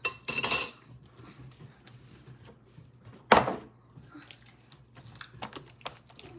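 A utensil scraping and clinking against a bowl while slime is cleaned out of it: a clattering, slightly ringing stretch about a quarter second in, a sharp knock a little after three seconds, and a few lighter clicks near the end.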